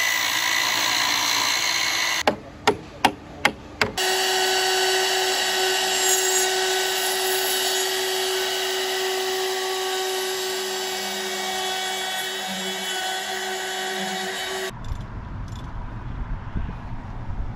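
Circular saw cutting through a cypress beam, then about five sharp knocks. After that, a trim router runs steadily along the edge of a cypress beam with an even whine for about ten seconds, and a low rumble takes over near the end.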